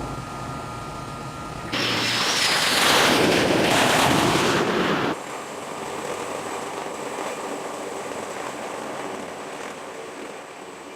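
Storm wind and heavy seas rushing past a ship. A much louder rush of wind and water starts abruptly about two seconds in and cuts off just as sharply about three seconds later.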